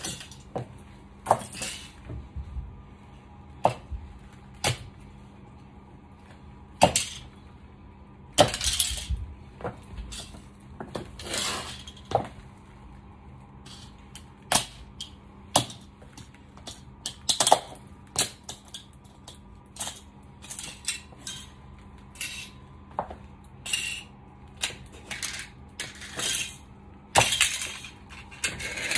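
Stiletto heels clicking on a tile floor and crushing small toy cars: irregular sharp cracks and clatters of plastic breaking and small pieces scattering, with a few louder snaps.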